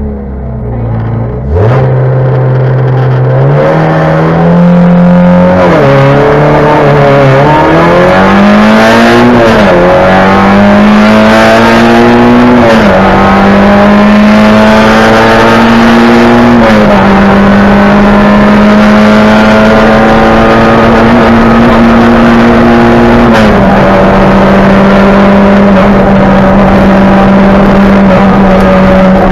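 Peugeot 106 N1 rally car's four-cylinder engine heard from inside the cabin, launching hard about a second and a half in and accelerating through the gears: the note climbs and drops back at each upshift. From about halfway it runs at high, near-steady revs at speed, with one more brief dip near the end.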